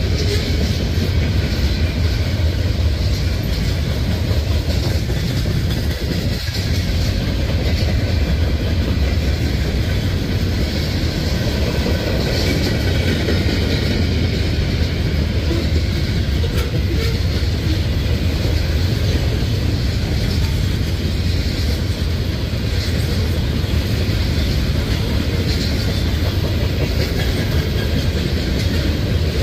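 Mixed freight cars of a CSX manifest train rolling past: steel wheels running on the rails in a steady low rumble.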